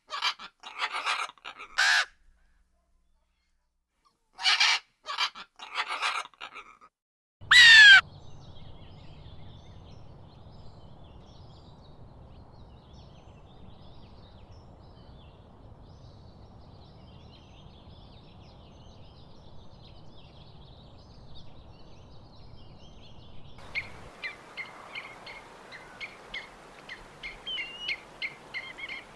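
Harsh bird calls in a few short bouts, the last a falling call about 8 seconds in, then faint distant bird chatter over a low hum. About two-thirds of the way through, a busier run of short chirps sets in.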